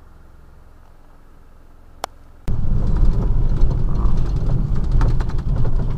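Car driving on a dirt road, heard from inside the vehicle: a quiet steady hum, a click about two seconds in, then an abrupt jump to loud low rumbling road and wind noise with rattling.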